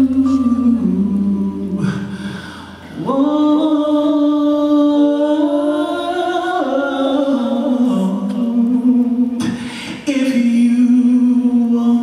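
Saxophone playing a slow ballad melody in long, held notes that step up and down, broken twice by short pauses.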